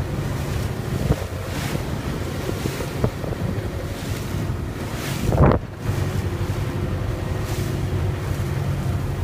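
A boat's motor runs steadily under the rush of water along the hull, with wind buffeting the microphone. There is one brief louder rush about five and a half seconds in.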